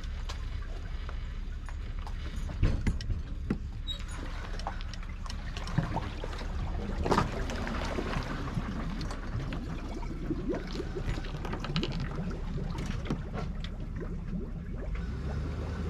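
Water sloshing around a boat, with a few sharp knocks near the start and middle, over a steady low rumble.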